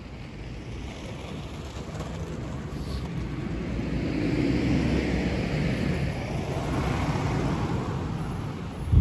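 Street traffic: a car passing close by, its tyre and engine noise swelling over a few seconds and then fading away, with a short low thump at the very end.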